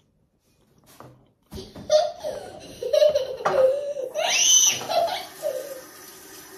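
Loud laughter starting about a second and a half in, rising to a high squeal near the middle and fading out before the end.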